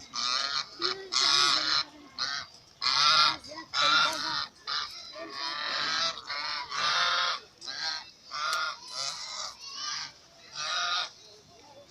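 Geese honking, a rapid, irregular series of harsh calls from several birds.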